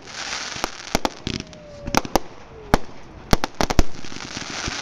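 Aerial fireworks display: irregular sharp bangs and cracks from bursting shells over a crackling hiss, with a quick cluster of the loudest bangs about three and a half seconds in.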